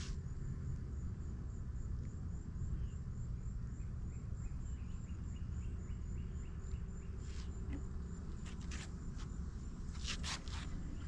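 An insect calling steadily outdoors: a high, evenly pulsed call at about four pulses a second, over a steady low rumble. Near the end come a few sharp clicks.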